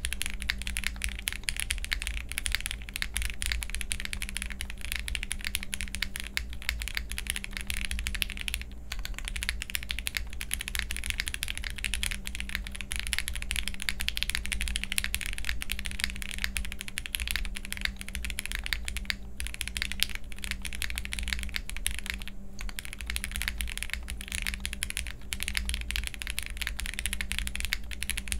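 Steady typing on a jris65 65% mechanical keyboard fitted with Gateron Ink Black linear switches and Poron plate foam: a dense, continuous run of keystroke clacks, with brief pauses about 9, 19 and 22 seconds in.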